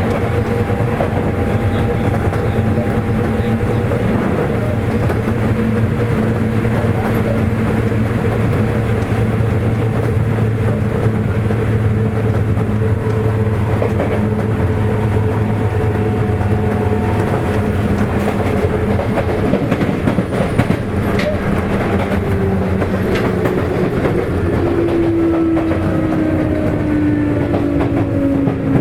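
Sotetsu 8000 series electric train with Hitachi IGBT-VVVF control, heard from inside a motor car while running: steady wheel and rail noise under a motor hum. Over the last few seconds a motor whine drops steadily in pitch as the train slows.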